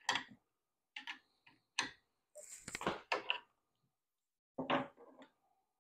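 Short metallic clicks and taps of a router-bit change on a CNC spindle: a wrench working the collet nut and the bit being handled in the collet. A few single clicks spaced about a second apart, with a busier cluster of clinks near the middle.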